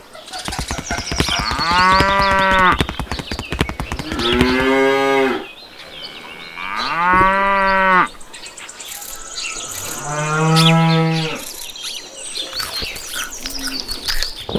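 A cow mooing four times, each call about a second long, the second and fourth lower in pitch, with light clicking under the first calls.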